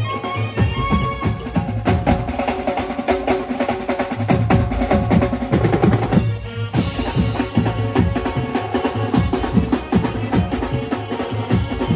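Live banjo band music: keyboards over a dense drum-kit and hand-drum rhythm. A little past halfway the band stops for a split second, then comes back in on a cymbal crash.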